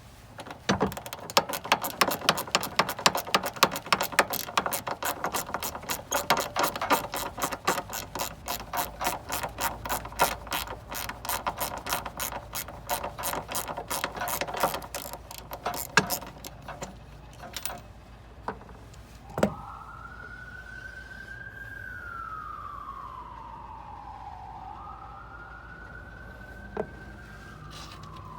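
Hand ratchet wrench clicking rapidly as bolts are loosened, with a few separate knocks after it stops. In the last third, a siren wails, rising and falling in pitch.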